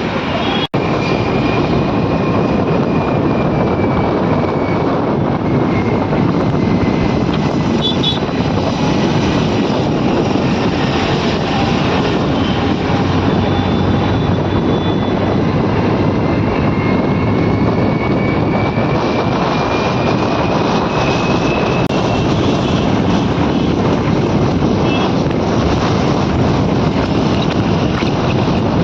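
Steady loud rumbling noise of a moving vehicle, with a faint whine that slowly falls and then rises again.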